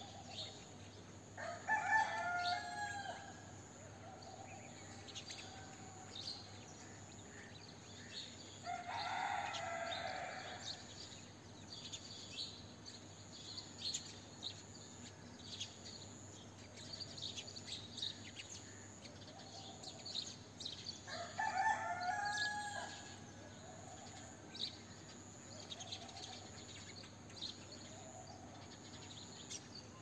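A rooster crowing three times, each crow lasting about a second and a half to two seconds, over continual short, high chirps of small songbirds.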